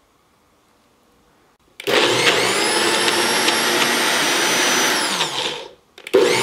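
NutriBullet blender running, its blades churning thick chickpea hummus: a loud high whine starts about two seconds in, holds steady for about three seconds, then winds down and stops. It starts again just before the end, a pulse of blending.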